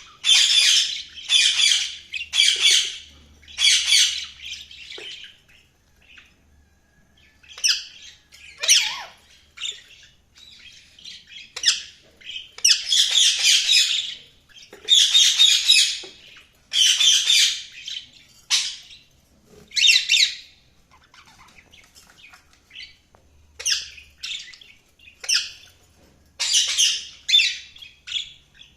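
Budgerigars chirping and chattering in bursts of a second or so, with short pauses between them.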